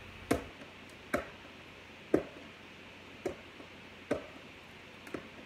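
Fingernails picking and prying at the sealed flap of a cardboard box, making short sharp clicks about once a second at uneven intervals. The box is stubborn to open.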